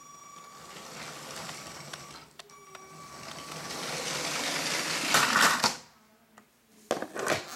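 Motorised Lego passenger train running on plastic track, its electric motor and wheels whirring and rattling louder as it approaches. The noise peaks about five seconds in and stops abruptly, as the train hits the Lego garbage truck on the rails. A few sharp plastic clicks follow near the end.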